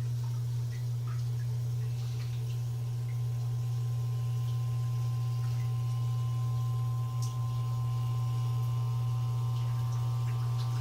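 Newly installed electric sump pump running and pumping water out of the pit, triggered by its float switch: a steady low motor hum. A faint higher whine joins about four seconds in.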